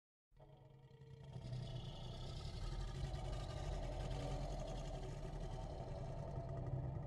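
Custom-made Godzilla sound effect: one long, deep, layered rumbling sound that starts abruptly out of silence, swells over the first couple of seconds and then holds steady.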